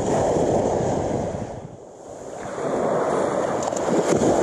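Small surf waves breaking and washing up the beach. The wash fades about two seconds in, then surges back.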